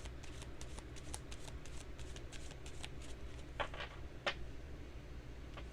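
Tarot cards being shuffled by hand, a quick run of soft papery clicks, then two or three sharper card snaps a little past halfway as a card is pulled from the deck.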